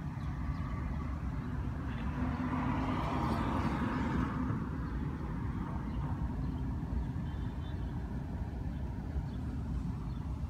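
Street traffic rumbling steadily, with one vehicle passing that swells up about two seconds in and fades a few seconds later.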